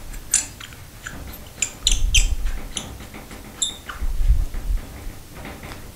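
Metal towel-bar fitting being tightened by hand onto a glass shower door: a run of small clicks and brief squeaks, with a couple of dull bumps.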